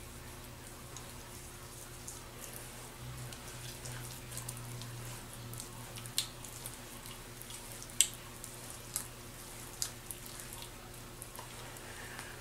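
Hands rubbing and patting moisturizing lotion into the face: faint soft wet rubbing with a few short sharp little clicks in the second half, over a faint steady low hum.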